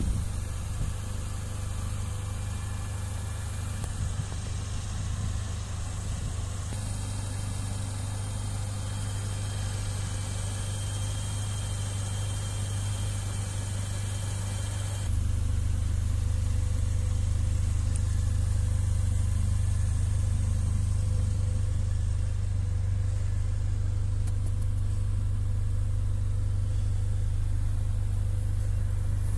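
Mercedes-AMG GLA 45's turbocharged four-cylinder engine idling with a steady low hum, getting louder about halfway through.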